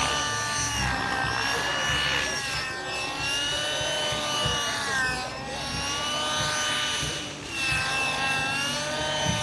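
Engine of a small powered paraglider (paramotor) droning in flight, its pitch drifting slowly up and down as it passes.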